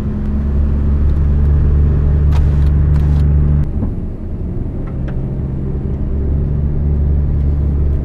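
Mazda Scrum kei van's small 660 cc three-cylinder engine droning steadily from inside the cab while driving, over road noise. The engine note drops a little just past the middle, then builds again.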